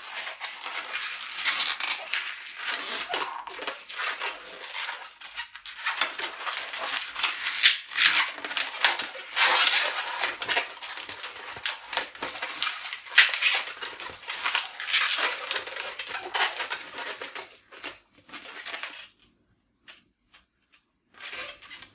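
Long latex modelling balloon being twisted into bubbles and locks, the inflated rubber rubbing and crackling against the hands in quick irregular strokes; it stops about three seconds before the end.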